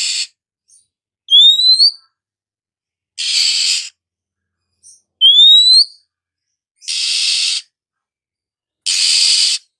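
Oriental magpie-robin calling: two clear rising whistles alternating with four harsh, rasping notes of under a second each, with silent gaps between.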